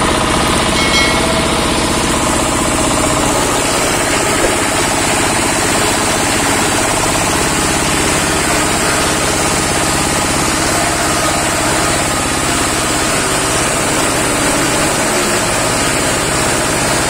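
Stationary single-cylinder diesel engine running steadily under load, belt-driving a hammer-mill wood grinder as waste wood and offcuts are fed into its hopper and ground into sawdust.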